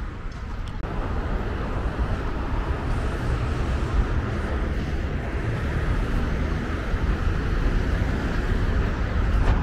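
Steady rush of traffic on a multi-lane highway, a continuous noise with a heavy low rumble that swells about a second in.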